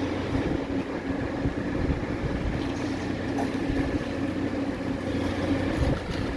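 Arc welding of studs onto a boiler bed coil: a steady electrical hum with irregular crackling throughout.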